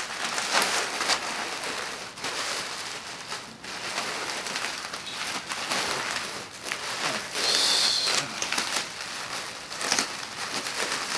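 Plastic packing material, bubble wrap, crinkling and rustling as it is handled and pressed around an item in a shipping box. The crackling is irregular, with a brief higher-pitched rasp a little past the middle.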